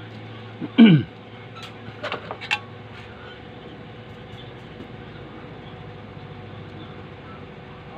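Tools being handled on an electronics workbench: a short squeak that falls in pitch about a second in, then a few light clicks and taps, over a steady low electrical hum.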